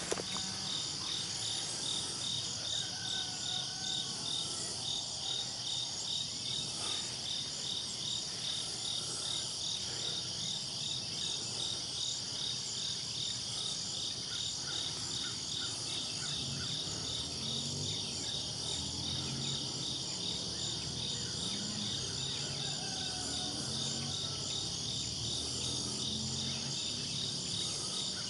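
Night insect chorus of crickets chirping in a fast, even pulse over a steady high drone.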